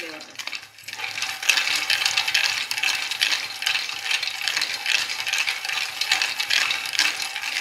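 Cashews rattling and skittering over the steel surface of a kadhai as a wooden spatula stirs them while they roast: a dense, continuous clatter of small clicks that picks up about a second in.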